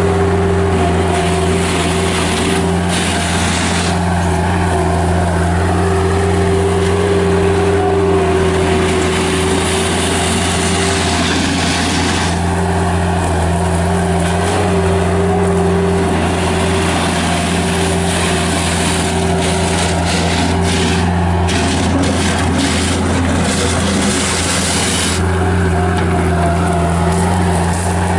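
Bobcat 751 skid steer loader's Kubota 1903 four-cylinder diesel running steadily at working throttle, with hissing and rattling coming and going as the machine is worked.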